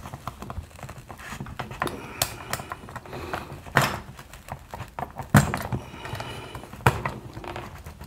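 Small scrapes, taps and clicks of a metal hand tool working at a printed circuit board, with three sharper clicks about a second and a half apart in the middle.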